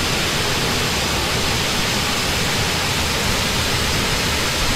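Waterfall pouring into a rocky plunge pool, a loud, steady rush of falling water.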